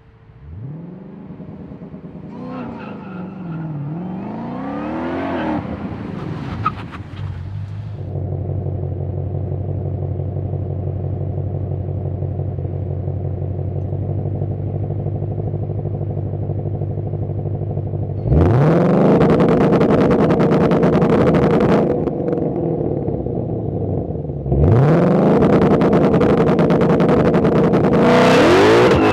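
2021 Ford Mustang Shelby GT500's supercharged 5.2-litre V8 on its stock exhaust. It blips up and down at first, then settles to a steady idle. Twice in the second half it is revved sharply and held high for several seconds before dropping back.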